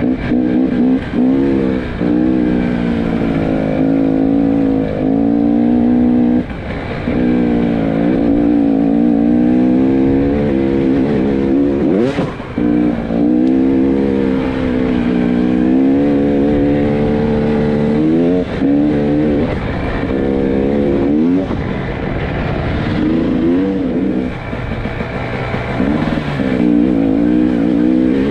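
300 cc two-stroke enduro motorcycle engine under way off-road, its pitch rising and falling over and over as the throttle is opened and closed and gears change, with a few brief drops where the throttle is shut off.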